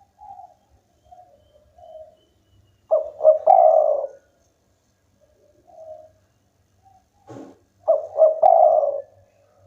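Spotted dove cooing: two loud phrases about five seconds apart, each two or three quick short notes running into a longer drawn-out note, with softer single coos in between.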